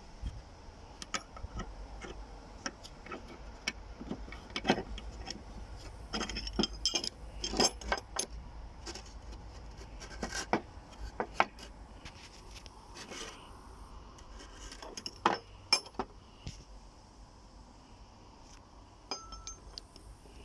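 Metal tools and small steel parts clinking and clattering in irregular knocks and clicks as a walk-behind tractor's half-shaft disconnect fork is worked on by hand.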